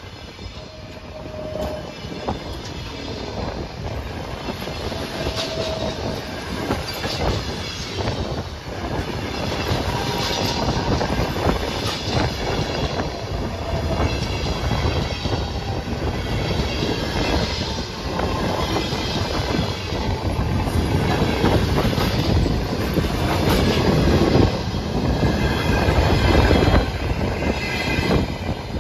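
Passenger coaches rolling past close by: steady wheel-on-rail running noise with frequent knocks from the wheels, and a few brief squealing tones. It grows louder toward the end.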